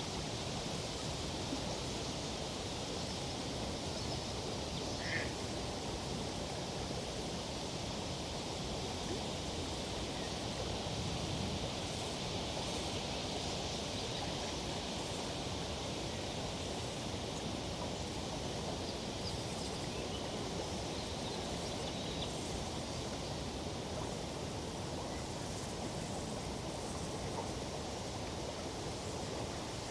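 Steady outdoor ambience of tree foliage rustling in a summer breeze over a flowing river, with one short high chirp about five seconds in.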